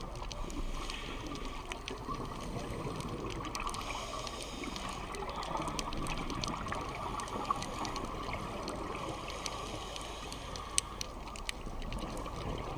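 Steady underwater water noise picked up by a dive camera in its underwater housing, with scattered faint clicks.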